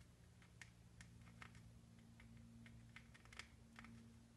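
Faint, irregular small clicks and taps of a plastic sculpting tool working modelling dough in a plastic mold, over a low steady hum.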